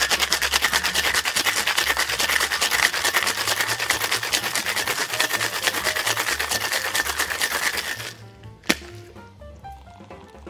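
Ice rattling hard inside a two-piece metal cocktail shaker during a vigorous wet shake, a fast, even rattle that stops about eight seconds in. A single sharp knock follows shortly after.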